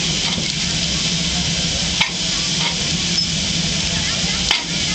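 Steam engine running with a steady hiss of steam over a low hum, broken by two sharp clicks, one about two seconds in and one near the end.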